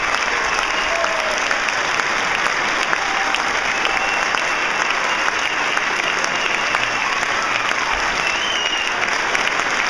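Audience applauding steadily, with a few short high calls over the clapping.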